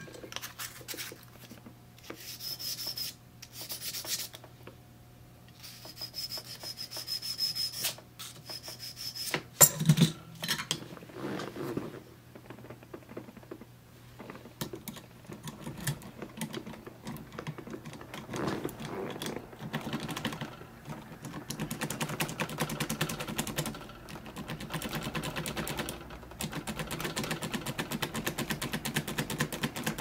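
Brass key blank rubbed in short, uneven strokes on abrasive paper to clean off marks, some strokes squeaking. In the second half the blank is worked back and forth in a Master Lock No. 77 padlock's keyway with an impressioning handle, giving a fast, steady clicking rattle as the pins mark the blank.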